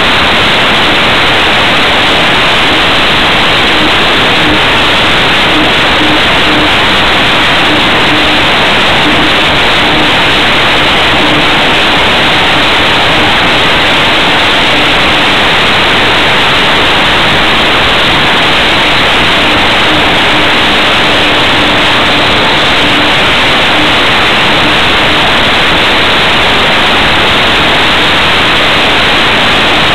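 Loud, steady rushing of airflow over a wing-mounted camera's microphone in flight, with a faint steady hum that fades in and out underneath.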